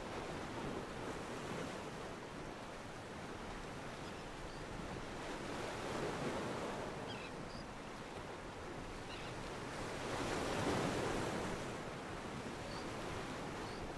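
Wind and harbour water noise, a steady rush that swells twice, about six and about eleven seconds in, with a few faint high chirps.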